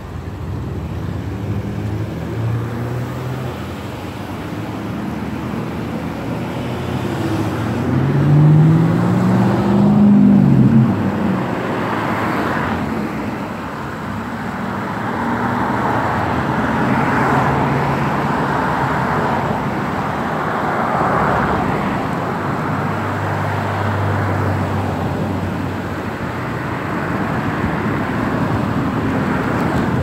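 Shallow creek water rushing and splashing over rocks in a riffle. About eight seconds in a motor vehicle passes, its engine rising in pitch and louder than the water for a few seconds.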